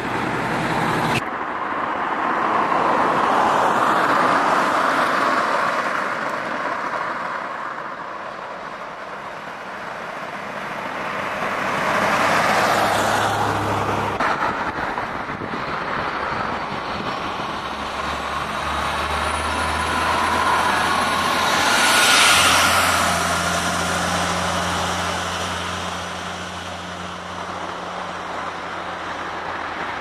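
Road traffic: vehicles passing one after another, each rising to a swell of noise and fading away. A low steady engine hum joins a little past halfway through.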